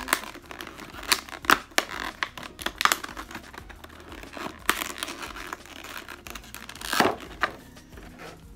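Clear plastic takeout salad container being pried open with a fork: its seal tearing and the stiff plastic lid crackling and snapping, with a few loud cracks about a second and a half in and again about seven seconds in.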